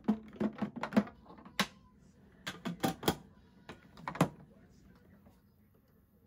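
Sharp plastic clicks and knocks from the parts of a new Winix humidifier being handled and set in place: a quick, uneven run of about a dozen taps over the first four seconds or so.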